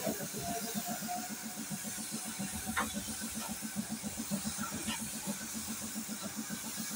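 Gravity-feed paint spray gun hissing as it lays a coat of white paint on a car body panel. Under the hiss, an air compressor runs with a fast, steady chugging beat.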